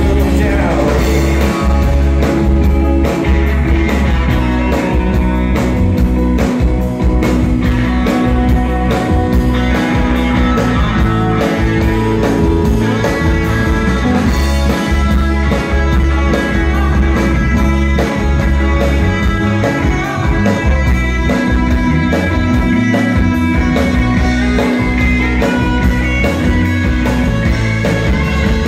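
Live rock and roll band playing loud: electric guitar, bass guitar and drums, with a heavy steady beat.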